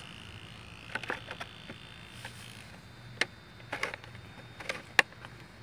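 Scattered hard plastic clicks and taps as the painted body shell is fitted and pressed down onto an RC buggy's chassis, ending in one sharp click.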